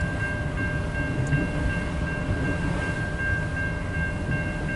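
Freight cars of a long CN manifest and autorack train rolling past a grade crossing: a steady low rumble with a faint, steady high-pitched tone over it.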